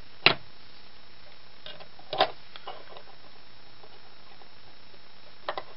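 A few sharp clicks and knocks of small steel window-hardware parts being handled and fitted together: one loud click just after the start, a small cluster around two seconds in, and two quick clicks near the end.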